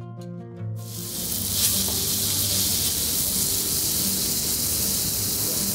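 Eggplant, tomato and pepper pieces sizzling in oil on a saj griddle: a steady hiss that starts abruptly under a second in, cutting off a few notes of guitar music.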